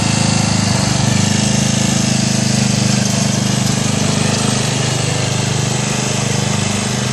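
Murray riding lawn mower's engine running steadily while the mower pushes snow with a homemade bucket plow.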